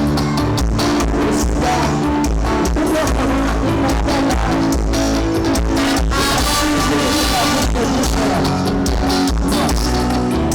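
Loud band music with a steady beat and heavy bass, playing an instrumental passage without singing.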